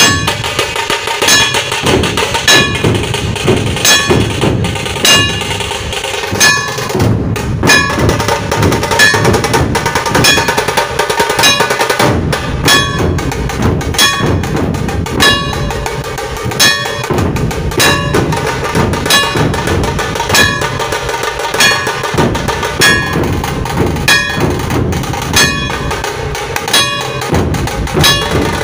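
Dhol tasha ensemble playing: many dhol barrel drums and tasha snare drums beat a loud, fast, dense rhythm, with sharp ringing accents recurring at a steady pace.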